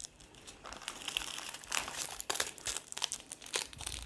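Small clear plastic bags of acrylic diamond-painting drills crinkling as they are handled and sorted by hand. The crackling is irregular and starts about half a second in.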